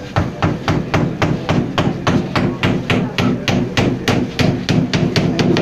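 Hammer blows on wood in a quick, even run, about three to four a second, as the coffin lid is nailed shut.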